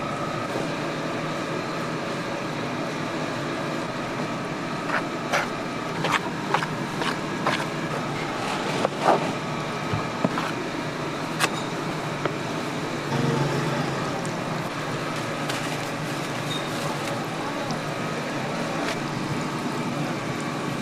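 A tool knocking and scraping against a plastic cutting board as fish cake paste is mixed, giving scattered sharp clicks and knocks mostly in the middle, over a steady machine-like hum.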